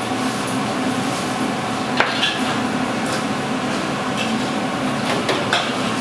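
Metal utensils knocking and clinking against cookware over a steady background hum, with one sharp knock about two seconds in and lighter clinks near the end.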